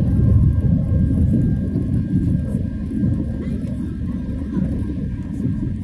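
Cabin noise inside an Airbus A320 climbing after takeoff: a steady low rumble of the jet engines and airflow, easing slightly in level.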